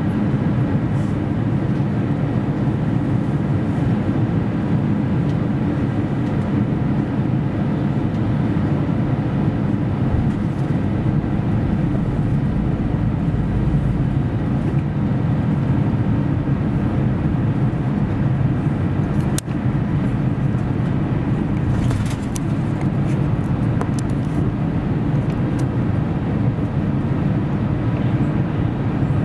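Airbus A350 cabin noise on approach: the steady rush and hum of the Rolls-Royce Trent XWB engines and airflow, heavy in the low range, with faint steady tones over it. A brief click about two-thirds of the way through.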